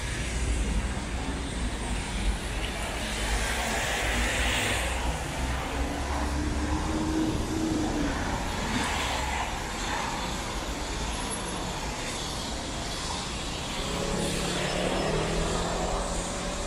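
Road traffic on a city street: cars and trucks going by with a steady rumble of engines and tyres.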